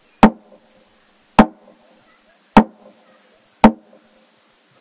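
A wooden slit-gong log drum (garamut) struck four times with an upright wooden pole, evenly, a little slower than once a second, each blow ringing briefly with a hollow tone.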